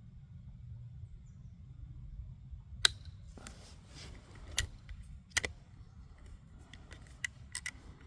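A single sharp .22 LR rifle shot about three seconds in, from a Zastava MP22 bolt-action rifle, followed by a series of metallic clicks as the bolt is worked.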